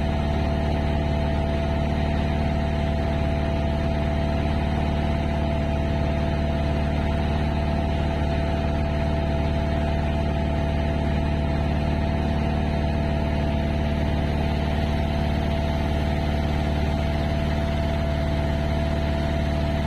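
An engine running steadily at an unchanging speed, with a constant hum and a steady higher tone over it.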